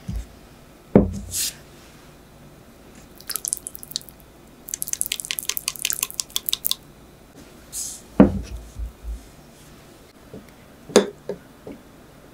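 Glass tumblers of cubed coffee jelly set down on a wooden board, giving dull knocks about a second in and again near eight seconds, and a sharper knock near the end. In between comes a quick run of small wet clicks, about ten a second, as the gelatin jelly cubes wobble and slip against the glass.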